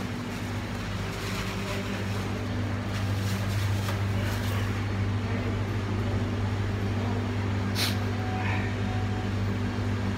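Steady low mechanical hum, getting slightly louder a couple of seconds in, with one short sharp click near the end.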